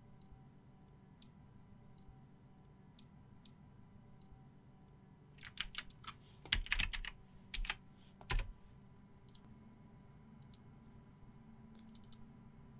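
Computer keyboard keystrokes and mouse clicks, sparse at first, with a quick cluster of louder keystrokes a little past the middle, over a faint steady hum.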